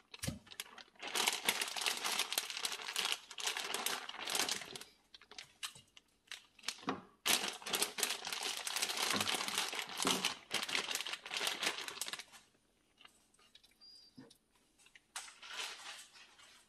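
Plastic zip-top bag crinkling as seasoned raw chicken thighs are pulled out of it and laid into an air fryer basket, in two long spells with a short pause between. It goes quieter for the last few seconds, with one more brief rustle near the end.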